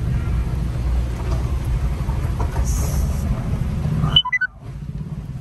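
Low, steady rumble of a car driving slowly, heard from inside the cabin. About four seconds in it drops out briefly with a quick falling run of short beeps, then carries on a little quieter.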